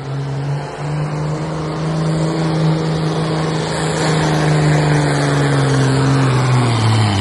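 Modified farm pulling tractor's diesel engine at full throttle, hauling the sled down the track. Its pitch holds high and steady, creeping up a little, then drops near the end as the pull comes to a stop.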